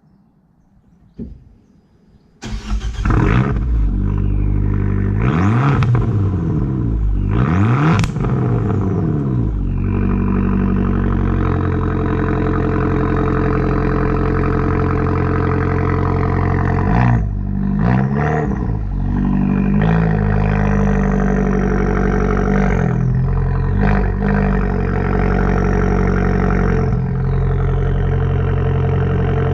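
Abarth 595 Competizione's 1.4-litre turbocharged four-cylinder through a Monza exhaust with its valve flap wired open, Stage 1 map. After a single click about a second in, the engine starts at about two and a half seconds, is revved twice, settles to a steady idle, and is blipped a few more times.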